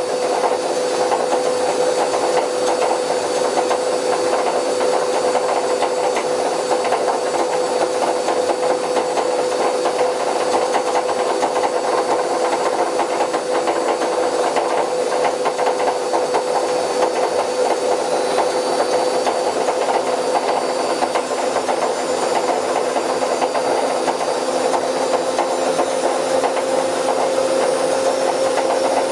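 Bauknecht WA Plus 844 washing machine running with its drum turning, giving a steady rough rushing noise over a constant whine that rises slightly near the end: the sound of a damaged drum bearing.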